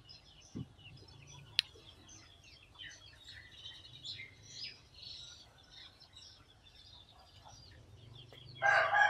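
Small birds chirping faintly, then a rooster crowing loud near the end. There is a single sharp click about a second and a half in.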